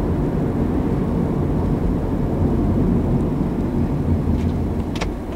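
Steady low rumble of a car driving along a city road, engine and tyre noise heard from inside the cabin. A single short click about five seconds in.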